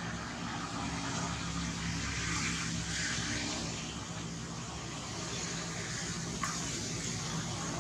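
Steady low engine hum of a motor vehicle, with a hiss that swells about two to three seconds in as it passes, and one sharp click about six and a half seconds in.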